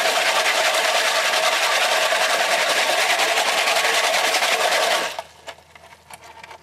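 Tap water running into a plastic milk-bottle container of rusty fishing hooks, rinsing the rust off, then shut off suddenly about five seconds in, leaving a few faint clicks.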